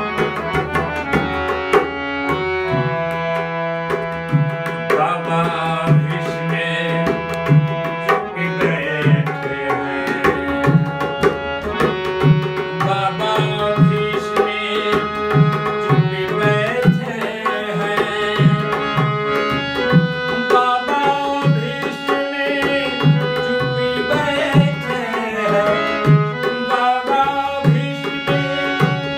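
Instrumental interlude of a Hindi devotional bhajan: tabla keeping a steady rhythm under a melody played on an instrument, with no singing.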